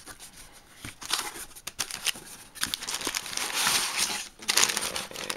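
Brown kraft packing paper crinkling and rustling as it is pulled out of a cardboard shipping box. It is faint at first and grows busier from about a second in.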